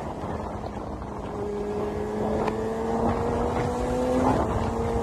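Kawasaki H2R's supercharged inline-four engine with a Vandemon exhaust, running at a steady cruise under way. Its pitch rises slowly for about four seconds, then breaks briefly. Wind noise runs underneath.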